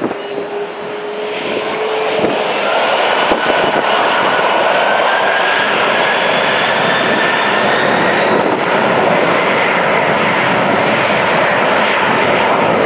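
McDonnell Douglas MD-11F trijet's engines spooling up to takeoff power at the start of its takeoff roll: a jet roar that builds over the first two seconds and then holds, with a whine that climbs steadily in pitch.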